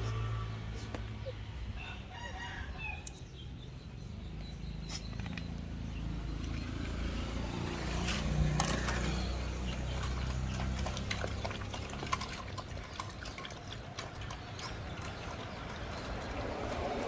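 Puppies eating soupy rice: wet lapping, smacking and chewing, heard as many small clicks and slurps, with a brief squeaky call about two seconds in.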